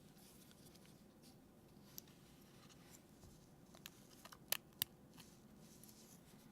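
Near silence: room tone with a few faint, sharp clicks, the loudest two in quick succession a little past the middle.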